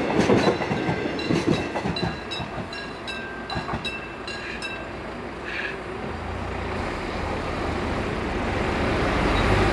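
Korail 311000-series electric train's wheels clacking over the rail joints as its last cars pass, the clacks fading as it pulls away, with the level-crossing warning bell ringing in short repeated dings for the first few seconds. From about six seconds a low road-traffic rumble grows louder.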